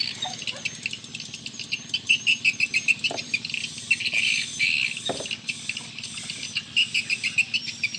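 Insects chirping in a dense chorus of rapid, repeating pulses, with a thin high whistle above.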